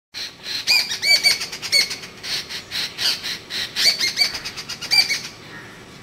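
A babbler calling in a rapid, excited run of notes, several a second: short arched ringing notes mixed with harsh squeaky chatter. The calls stop a little after five seconds.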